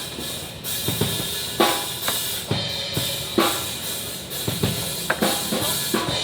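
Drum kit played during a band sound check: bass drum, snare and cymbal hits, with a loud accented stroke about every two seconds and lighter strokes between.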